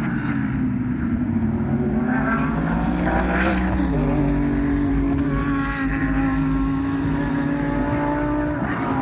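GT race car engine running loud. Its pitch climbs slowly, drops suddenly about four seconds in, then holds fairly steady until it changes near the end.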